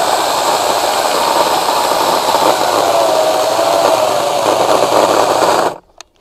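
Ryobi 40V HP brushless cordless chainsaw with a 20-inch bar cutting deep into a large, freshly fallen log: a steady electric motor whine under load, wavering a little in pitch, over the rasp of the chain through the wood. It stops suddenly near the end.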